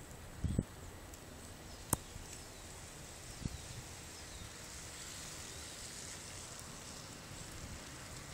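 Faint outdoor background hiss that swells slightly in the second half, with a soft low knock about half a second in and a sharp click about two seconds in.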